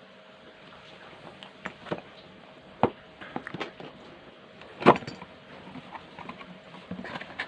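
Handling of packaging and small hard parts: a scattered series of clicks and knocks, the loudest one about five seconds in, over a faint steady hum.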